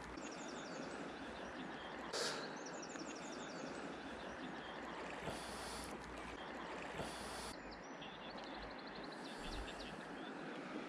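Steady rush of flowing river water, with a small bird's rapid run of high-pitched chirps heard several times and a short burst of noise about two seconds in.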